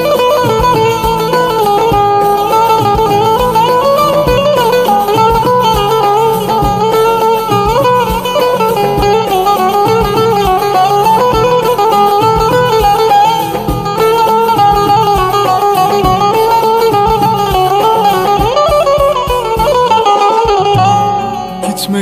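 Instrumental break of a Turkish arabesk song: a winding, wavering lead melody over steady accompaniment, with no vocals.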